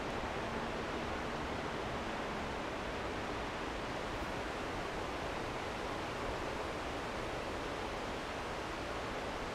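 Steady rushing of a river through a gorge.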